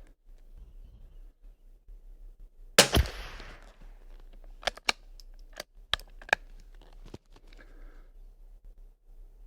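A single shot from a Kimber .22 LR rifle, a loud sharp crack about three seconds in with a short trailing echo. Several lighter, sharp clicks follow over the next few seconds.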